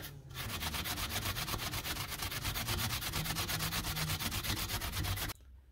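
Fine wire wool with metal polish rubbed back and forth on a small rusty steel bracket, taking the rust off: quick, even scrubbing strokes that stop abruptly near the end.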